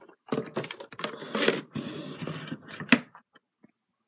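Cardboard DVD box-set packaging being handled: paperboard cases and a book sliding and rustling, with a sharp tap about three seconds in.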